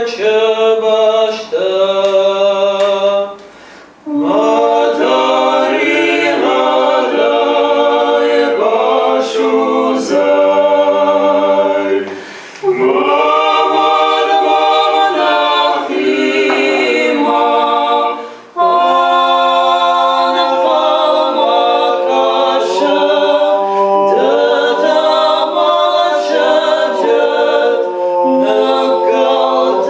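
Three voices, a woman and two men, singing a song in Ossetian a cappella in harmony, with short breaks between phrases.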